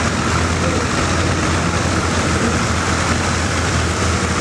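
Farm tractor engine running steadily with a low hum, at an even level throughout.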